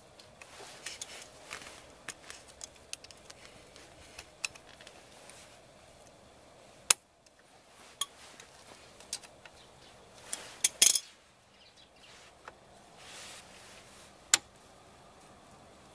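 Small metallic clicks and clinks from a car's rear drum brake parts being handled and fitted by hand at the hub, irregular and sparse, with sharper clinks about 7 s and 11 s in.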